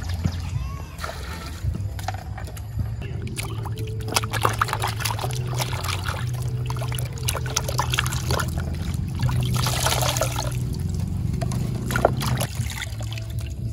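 Water splashing and sloshing in a plastic basin as hands rub and turn peeled green papaya pieces, with a few pours near the start. A low, steady background music bed runs underneath.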